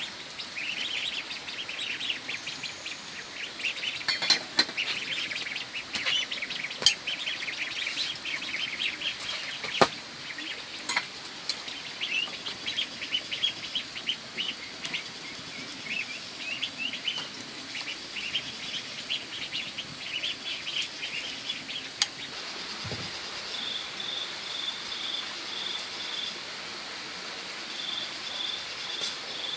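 Birds chirping and chattering rapidly and continuously, with a few sharp clicks over them. After about 23 seconds the chatter gives way to short trains of evenly spaced high peeps.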